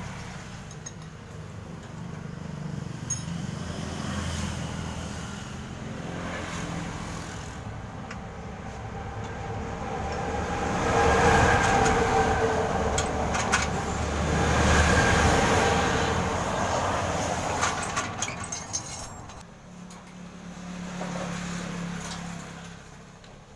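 Motor vehicle engine running. It swells louder twice around the middle, as if revving or passing close by, then fades near the end, with a few light metallic clinks.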